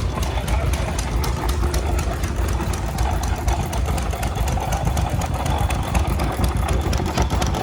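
An engine idling steadily, its firing strokes making a rapid, even beat.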